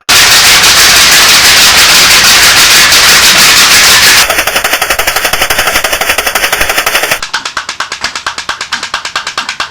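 Toy putt-putt (pop-pop) boats running: a rapid, even stream of pops. The sound changes abruptly about four seconds in and again about seven seconds in, as if three different boats are heard in turn, and the last is quieter.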